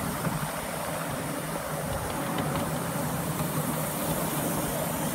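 A 7¼-inch gauge miniature steam train, hauled by a live-steam Britannia locomotive, running steadily with passengers aboard: the wheels rumble on the track and the locomotive works ahead.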